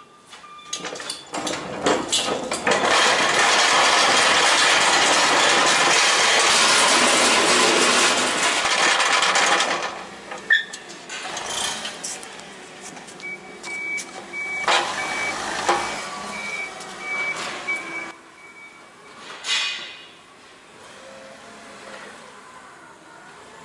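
A loud rattling rumble for about eight seconds as a hand pallet jack is rolled across a trailer's wooden floor and the dock plate. Then a forklift's backup alarm beeps in short repeated bursts for several seconds, with scattered knocks afterward.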